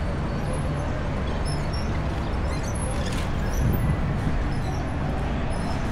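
City street ambience: a steady rumble of traffic, swelling slightly about halfway through, with faint bird chirps.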